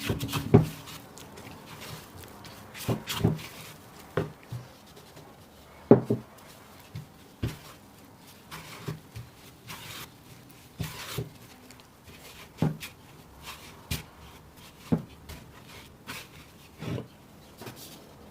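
Food-preparation handling sounds: irregular sharp taps and knocks with rubbing between them, as hands and utensils work the dough ingredients.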